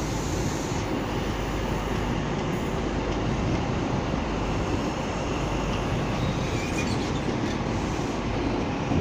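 Mark 3 coaches of an InterCity 125 high-speed train rolling past along the platform, a steady rumble of wheels on rail.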